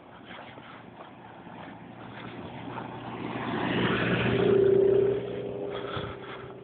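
A car drives past on a snow-covered street: its engine and tyre noise builds over a few seconds, is loudest a little past the middle, then drops away, leaving a steady hum.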